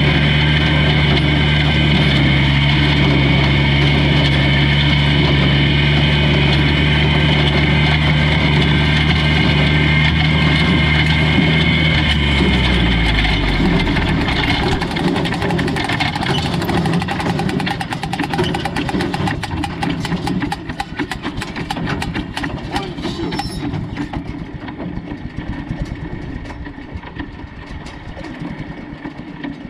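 Old tractor engine running at a steady speed, then slowing about twelve seconds in. After that it runs rougher and quieter, with rapid clicking through the middle stretch.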